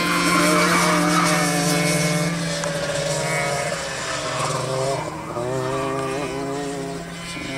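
Two racing kart engines running at speed on the circuit. Their overlapping pitches shift and waver as the karts work through the corners, and the sound eases slightly near the end.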